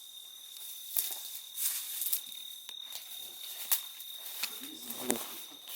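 Crickets chirring steadily at night in one continuous high tone, with a handful of sharp footstep-like clicks and crunches scattered through it.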